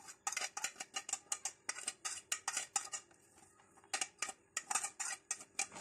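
Metal utensil scraping and tapping on a ceramic plate as spices are pushed off it into a plastic box of boiled potato cubes: a quick run of light clicks and scrapes, pausing for about a second past the middle.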